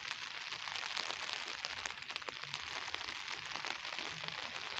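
Heavy rain falling: a steady hiss thick with the small ticks of drops striking nearby surfaces.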